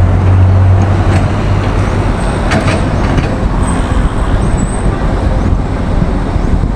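Steady rumble of vehicle engines and traffic noise, with a low hum that fades about a second and a half in.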